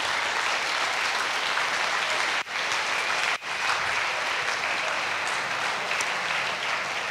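Large lecture-hall audience applauding steadily. The sound cuts out for an instant twice, about two and a half and three and a half seconds in.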